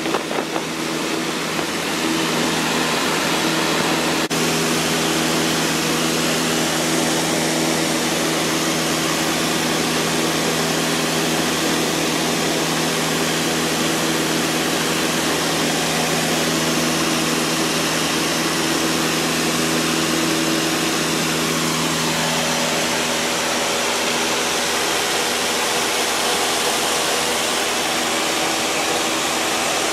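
Piston engine and propeller of a 1960s four-seat light airplane running steadily in flight, heard from inside the cabin as a loud drone mixed with rushing airflow. The engine note shifts slightly about three-quarters of the way through.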